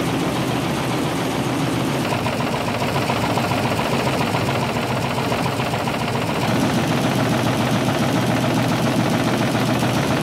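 Roto-Fingers pea-bean sheller running: a steady mechanical hum from its motor mixed with the churning of pea pods in its spinning wire-mesh drum, getting a little louder about six and a half seconds in.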